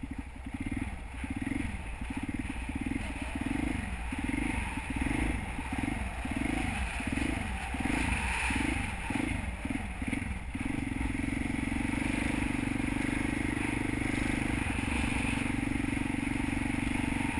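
Honda XR650 single-cylinder four-stroke engine, ridden on the move. For the first ten seconds or so its pitch rises and falls about once a second with the throttle. After that it holds a steady speed.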